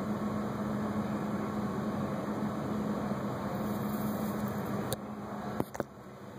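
Steady mechanical hum with a constant low drone, dropping away about five and a half seconds in, with a couple of sharp clicks around then.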